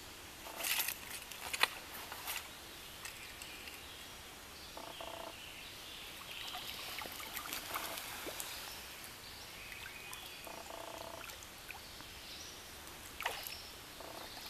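Short splashes in the water a few times in the first couple of seconds and once near the end, from a brook trout stirring in a landing net held in the stream, over a faint steady hiss of flowing water.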